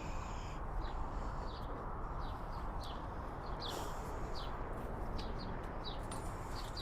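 Birds chirping: short, downward-sliding chirps, about two a second, over a steady low background rumble.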